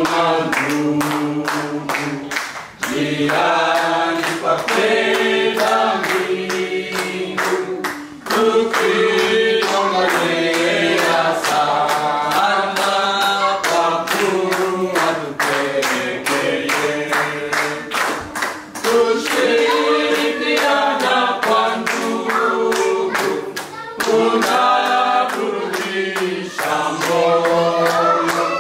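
A group of men and women singing together, clapping their hands in a steady beat.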